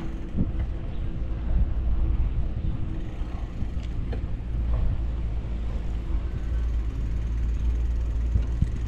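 Street noise heard from a moving bicycle: a steady low rumble of wind on the microphone, with a car running past and a few small knocks.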